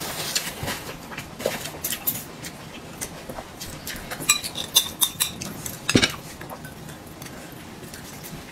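Chopsticks tapping and clinking against plates and bowls as food is picked up and laid on a pancake wrap: scattered light clicks, a few ringing clinks around four to five seconds in, and a sharper knock about six seconds in.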